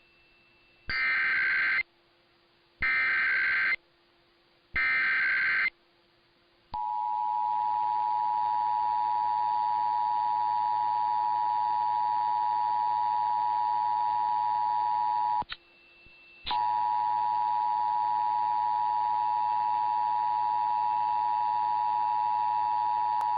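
Emergency Alert System test over AM radio: three short screeching bursts of SAME data header, each about a second long and two seconds apart, then the steady two-tone EAS attention signal. The tone cuts out for about a second partway through and then resumes.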